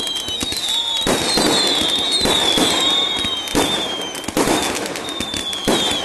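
Fireworks going off one after another: high whistles from rising rockets, sliding slightly down in pitch, over repeated irregular bangs and crackles from bursting shells.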